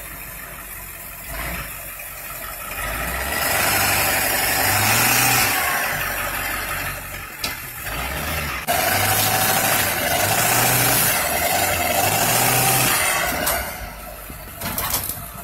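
Ford Excursion SUV's engine revving in repeated surges under heavy load as it pushes a parked car along bumper-to-bumper. It eases off near the end.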